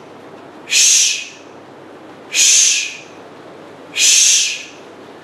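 A man's forced exhalations, three sharp hissing breaths about a second and a half apart, one on each contraction of a cable side crunch.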